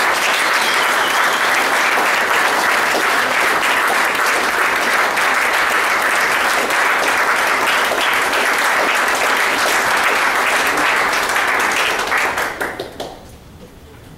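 Audience applauding in a hall: steady, dense clapping that fades out near the end.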